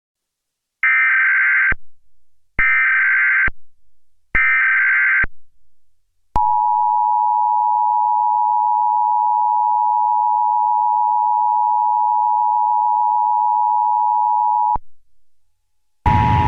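Emergency Alert System SAME header: three identical one-second bursts of warbling data tones about a second apart. Then the EAS two-tone attention signal holds steady for about eight seconds and cuts off abruptly. Just before the end a noisier sound starts, with the same two tones under it.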